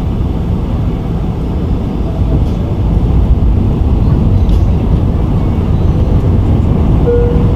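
Steady cabin noise of a Boeing 747-400 on approach, the airflow and its Pratt & Whitney PW4056 turbofan engines making a deep, even rumble. It grows a little louder about three seconds in.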